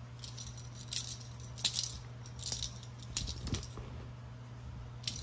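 Light, scattered jingling and rustling of a feather wand cat toy being swished for a playing kitten, over a low steady hum.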